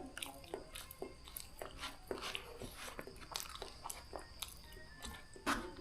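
A person chewing a mouthful of Mie Gacoan noodles close to the microphone: a run of wet, sharp mouth clicks and bites, with a louder one near the end.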